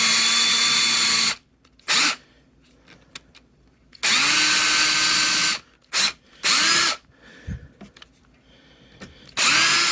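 Power drill with a 1/8-inch bit drilling screw holes into a Jeep soft-top bow knuckle, run in a series of trigger pulls with pauses between. Each run spins up to a steady whine.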